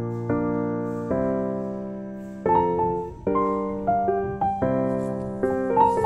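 Background music: a soft piano playing chords, each struck and left to fade. About halfway through, the notes come quicker.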